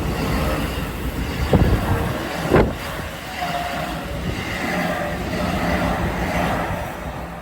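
Keisei electric train running past on the rails, its noise swelling and then fading near the end, with two sharp knocks about a second apart and a brief whine in the middle.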